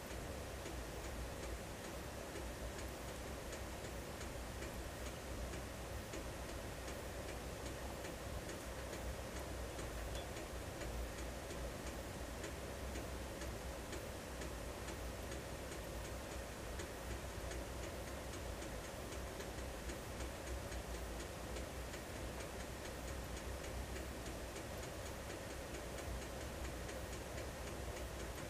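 Wood fire burning in an Invicta Siam cast-iron stove: a steady low rushing of the fire and its draft, unchanging throughout, with a faint regular ticking over it.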